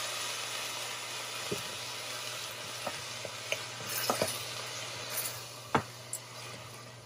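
Red wine sizzling as it deglazes a hot pot of toasted lentils, the sizzle dying away while a wooden spoon stirs. A few short knocks of the spoon against the stainless-steel pot.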